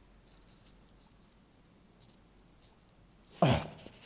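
Faint rustling and light rattling of a broken plastic toy being handled and held up. About three seconds in comes a louder, short sound that drops steeply in pitch.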